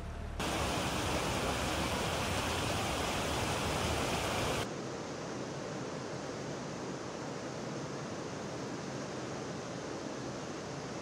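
Fast-flowing floodwater rushing: an even noise, loud and hissy for about the first four seconds, then dropping suddenly to a quieter, steadier rush.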